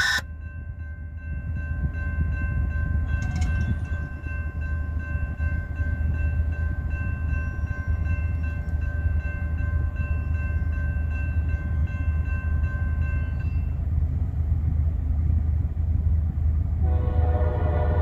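Diesel-hauled train rumbling steadily as it runs by, with a steady high-pitched whine for roughly the first thirteen seconds. Near the end the train's horn starts to sound as a chord of several tones.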